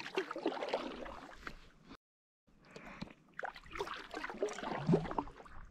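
Kayak being paddled: the paddle blade splashing and dripping water, with scattered clicks and knocks. The sound drops out to complete silence for about half a second near two seconds in.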